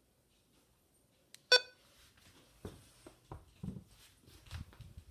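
A small click and then a single short electronic beep about a second and a half in, like a button press on a radio, followed by scattered light knocks and thumps of handling.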